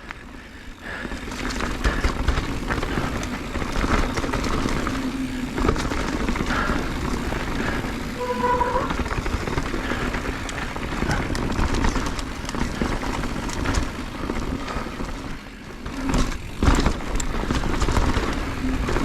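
Mountain bike descending a rocky downhill trail at speed: wind rushing over the microphone, with tyres and frame clattering and rattling over rocks. A brief tone sounds about eight seconds in.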